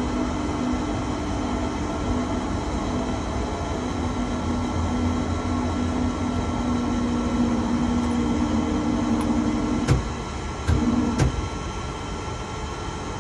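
Tower crane's slewing drive humming steadily as the jib is swung round, heard from the operator's cab. About ten seconds in the hum cuts off with a sharp click, then comes back twice in short blips with clicks as the swing is brought to a stop.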